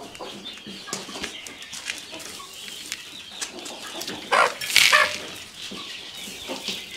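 Ornamental chickens clucking, with a short louder flurry of sound about halfway through.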